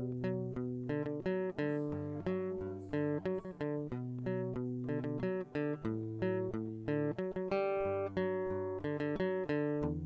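Solo acoustic guitar playing a slow melody: plucked single notes, a few a second, each ringing out over held bass notes.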